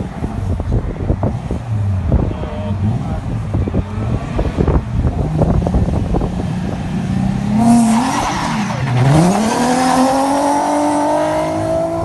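Rally car engine, first heard as a rapid, uneven run of sharp pops and crackles over a low rumble. From about eight seconds in the engine note comes through clearly, dips once near nine seconds and then rises steadily as the car accelerates hard.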